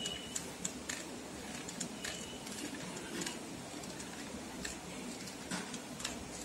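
Light, irregular clicks and ticks from handling a hot glue gun and small beads in a plastic bead box, over a steady background hiss.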